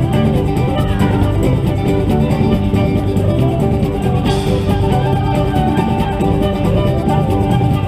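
Music with guitar over a strong bass line and a steady beat.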